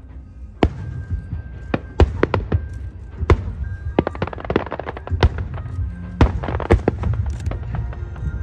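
Fireworks display: a rapid, irregular run of sharp bangs from bursting shells, beginning under a second in, over a low rumble and background music.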